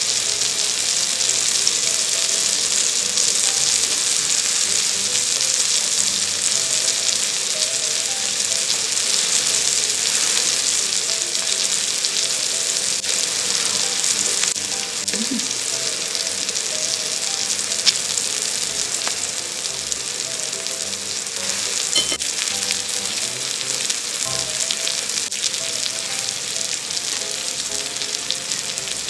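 A thick beef striploin steak sizzling in butter on an electric griddle: a steady frying hiss, with a couple of sharp clicks a little past the middle.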